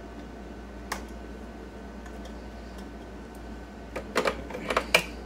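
Sheet-metal parts of a slot machine coin hopper being handled and pulled apart: one sharp click about a second in, then a quick cluster of metallic clicks and clanks near the end. A faint steady hum runs underneath.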